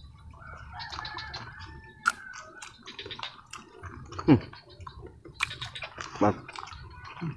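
People eating grilled snail satay off skewers by hand: a run of short clicks and mouth smacks of chewing, with two loud slurps that fall in pitch, about four and six seconds in.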